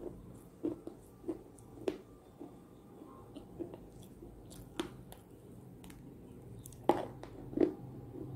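Close-up chewing and biting of a crunchy homemade edible-clay (Nakumatt) cookie: a series of short, sharp crunches, roughly one every half second to second, with the two loudest near the end.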